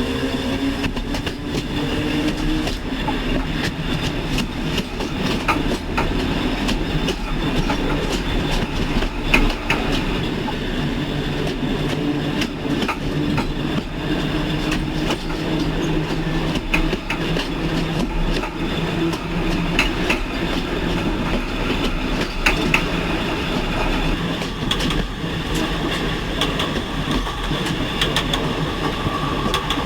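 Train running along the track: a steady wheel-on-rail rumble with many scattered sharp clicks.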